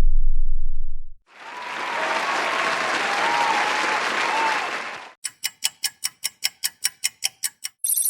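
A string of stock sound effects. The tail of a deep boom fades out in the first second. Then comes about four seconds of crowd applause with a few whistles, a quick run of even ticks at about five or six a second, and near the end a bright, high electronic tone begins.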